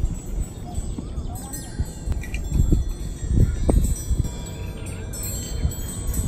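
Many small brass bells with leaf-shaped wind catchers, hung on strings from a tree, tinkling and ringing together in the breeze. Gusts of wind rumble on the microphone, strongest around the middle.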